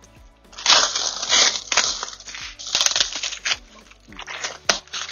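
Packaging wrap being cut and torn open by hand, a run of loud crinkling, crackling bursts for about three seconds, then a few shorter rustles near the end.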